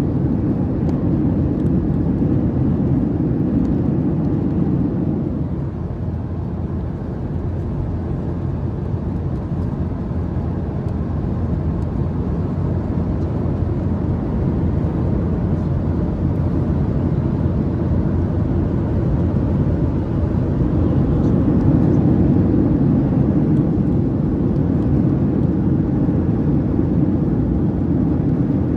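Steady low cabin noise inside a Boeing 737-800 with its CFM56-7B engines running: a deep, even rush of engine and airflow noise that eases slightly a few seconds in and swells a little again about two-thirds of the way through.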